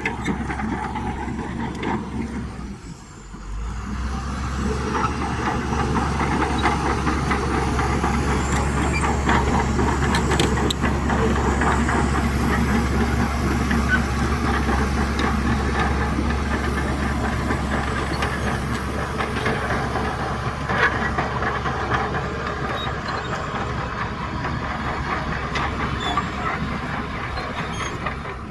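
Shantui DH17C2 crawler bulldozer at work: its diesel engine runs with a steady low rumble while the steel tracks clank and rattle. The sound drops briefly about three seconds in, then runs on steadily.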